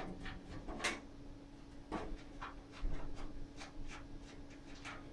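Scattered light clicks and taps of a PC case being handled and turned on a desk, the sharpest about a second in, over a faint steady hum.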